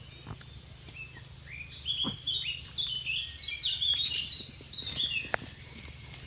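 A small bird singing a quick run of short, falling high notes for about four seconds, over a low steady hum.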